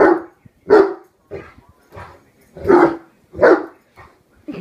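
A year-old Great Dane barking: four loud barks, one at the start, one just before a second in, then two close together a little after halfway, with softer short sounds between them.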